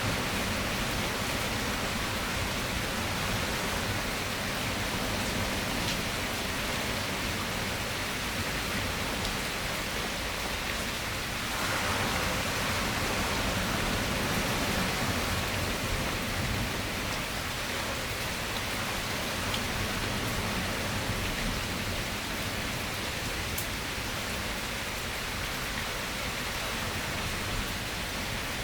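Steady rain falling, an even hiss with no distinct drops, swelling slightly about twelve seconds in.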